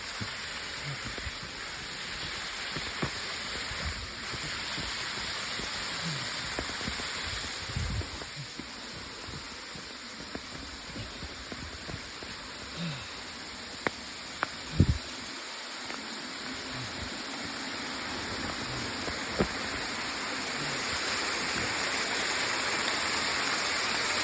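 Steady rush of a waterfall swollen by rain, with rain falling, growing louder near the end. A few sharp knocks sound about midway and again a little later.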